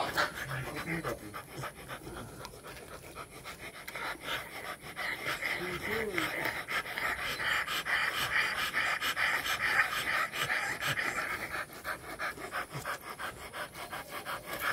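Two rottweilers panting fast and heavily with their mouths open, from the exertion of mating. A steady hiss joins in for several seconds in the middle.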